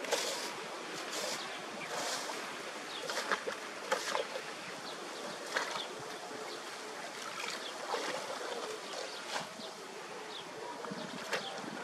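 Shallow canal water sloshing and splashing as a long pole is prodded and pushed through a clog of floating debris, with scattered short knocks and rustles.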